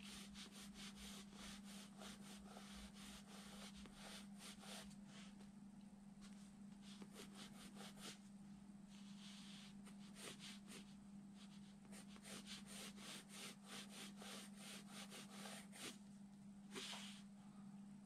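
Faint scratching of a Faber-Castell coloured pencil on drawing paper: quick sketching strokes in runs, broken by short pauses.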